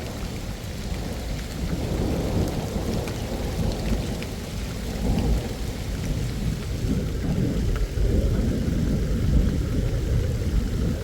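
Heavy rain and strong wind in a storm: a continuous low, gusting rumble with faint scattered raindrop ticks, growing a little louder about eight seconds in.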